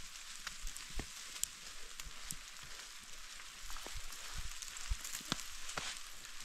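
Snow falling from snow-laden tree branches and pattering down around a person: a steady rain-like hiss with scattered soft ticks and thumps of clumps landing.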